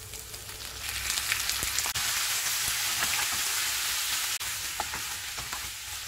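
Raw boneless chicken pieces sizzling in hot sesame oil as they go into the pan and are stirred with a wooden spatula, with a few light knocks of the spatula. The sizzle swells about a second in as the meat hits the oil and eases slightly near the end.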